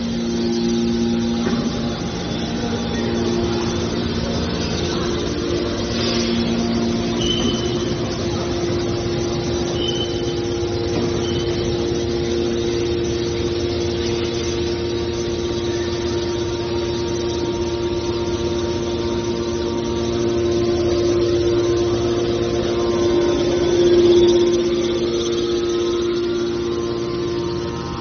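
Hydraulic scrap metal baler running, its hydraulic pump giving a steady mechanical hum, with a brief swell in loudness late on.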